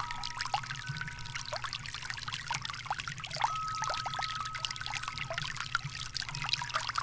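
Water trickling and splashing steadily into a swimming pool from its stacked-rock waterfall. A thin steady tone comes and goes behind it.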